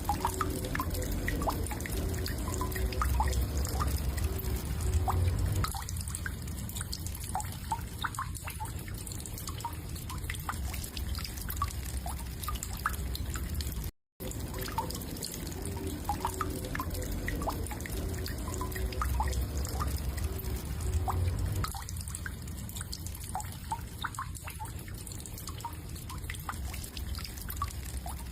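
Water dripping irregularly, scattered small drops over a low hum, with a brief gap about halfway after which the same passage repeats.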